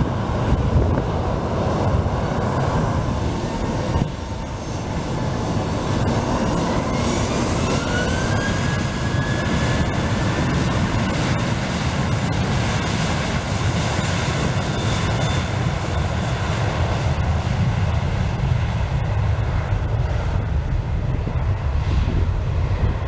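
Jet engines of a SilkAir Boeing 737 running up to power as it begins its takeoff roll: a steady low rumble, with a thin whine that rises about six seconds in and then holds steady.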